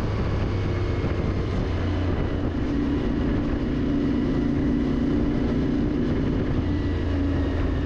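Motorcycle engine running steadily while riding at a cruising pace, with road and wind noise.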